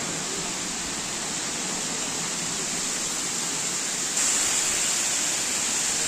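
Steady rush of falling water from a waterfall, getting a little louder about four seconds in.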